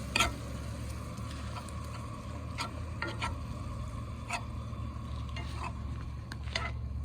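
Ground bison meat with garlic and ginger sizzling in olive oil in a pan, with a few short sharp clicks scattered through.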